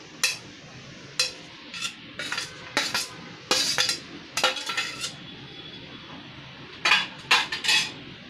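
Utensil clinking and scraping against dishes as chopped capsicum is tipped into a glass bowl, in a run of short sharp clinks with a pause of about two seconds before a last cluster near the end.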